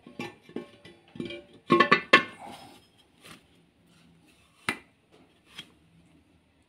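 Metal clinking and ringing as a bare crankshaft is handled and turned in the main bearings of a Renault 1.2 16v engine block: a quick run of ringing knocks in the first couple of seconds, then two single sharp clinks near the end.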